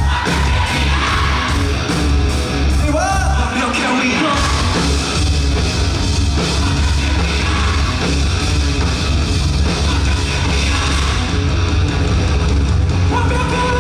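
A live rock band playing a loud, heavy song: electric guitars, bass and drums, with a voice singing and shouting over them.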